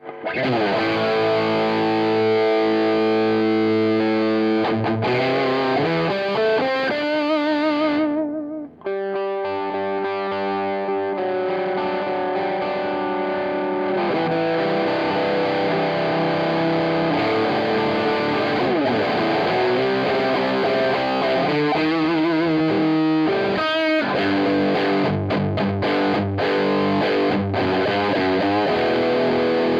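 Electric guitar played through an MXR DD25 Dookie Drive overdrive pedal with its gain turned all the way up: distorted chords and riffs, with wavering, bent notes and a brief break about eight seconds in.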